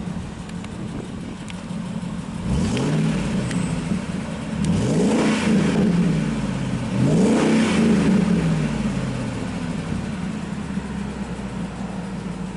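1999 Ford Lightning's supercharged 5.4-liter V8 idling, then revved three times, the pitch climbing and falling back each time, the second and third revs the loudest, before settling back to idle.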